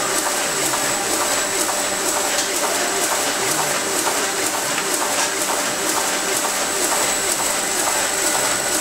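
Sheet-fed printing press running: a steady mechanical din with rapid, regular clicking and a thin, steady high whine.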